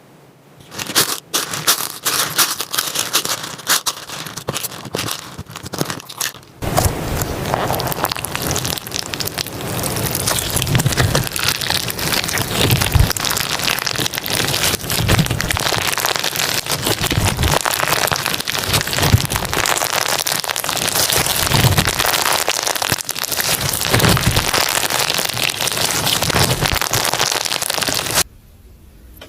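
Hands playing with slime. There are scattered crackles and clicks for about six seconds, then dense, continuous crackling and popping with a soft low squish every second or two. It stops abruptly near the end.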